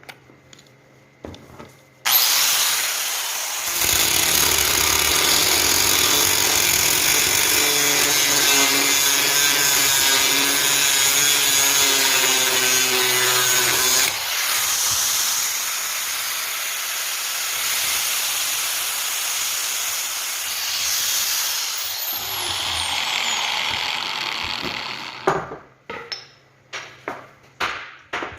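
A handheld power tool switches on suddenly about two seconds in and runs under load against the work, its pitch steady for a stretch and then lower. Near the end it is switched off and winds down, and a few sharp knocks and clicks follow.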